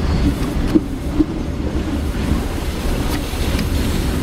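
Locomotive-hauled passenger train running along the line, heard from a coach window: a steady rumble of wheels on the rails, with two short knocks about a second in.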